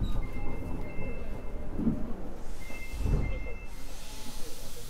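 Sapporo subway 9000-series rubber-tyred train coming to a stop at a station, with a low rumble and a few low thumps. A pair of high electronic tones sounds twice, and a hiss rises near the end.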